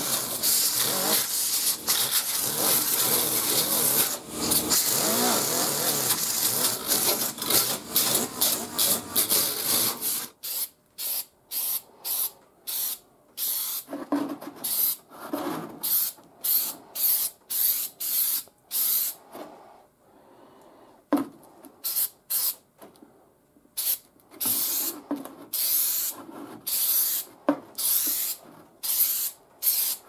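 A small die grinder runs continuously on the steel wheel-arch lip for about ten seconds, its pitch wavering under load, then stops. After that comes a run of short scraping, crinkling bursts of a cardboard template being pressed and rubbed against the fender.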